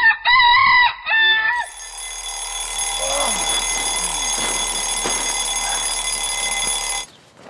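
Two short, loud warbling alarm tones, like an alarm clock going off. They are followed by a steady high-pitched electronic ringing with a few faint chirps under it, which cuts off suddenly near the end.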